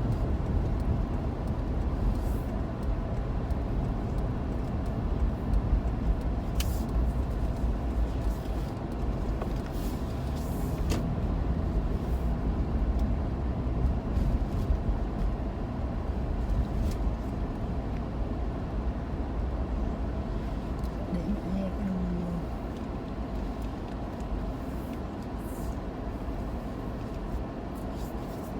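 Steady low rumble of a road vehicle's engine and road noise, with scattered light clicks and knocks.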